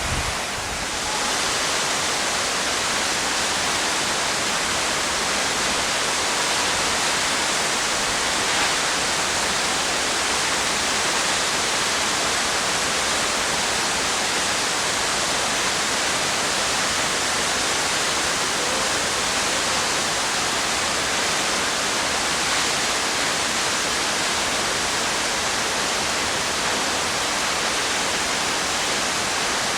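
Tall mountain waterfall: a steady, unbroken rush of falling water.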